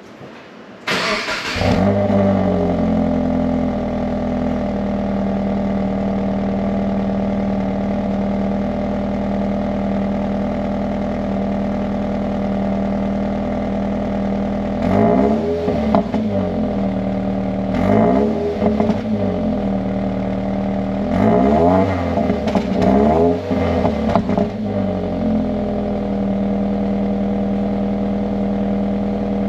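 A Subaru flat-four engine starts up through an STI Performance Muffler with center-exit tips: a short crank burst, then it catches and settles into a steady idle. Past the middle it is blipped through several quick revs that rise and fall, then it drops back to idle.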